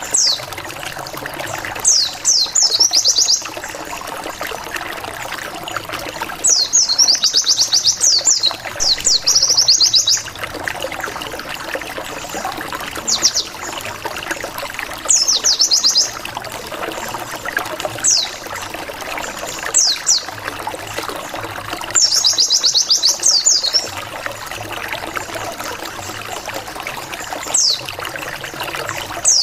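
White-eye (pleci) lure calls: bursts of rapid, high "wit wit wit" notes, each a quick run of falling chirps, repeating every few seconds over a steady trickling background. It is a lure sound meant to provoke rival white-eyes into answering.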